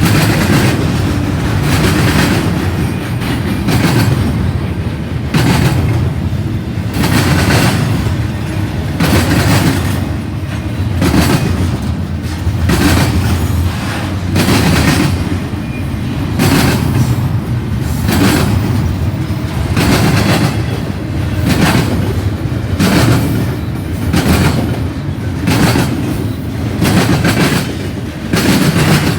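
Intermodal freight cars of a passing freight train rolling by, a steady rumble with wheel clacks over the rail joints roughly once a second.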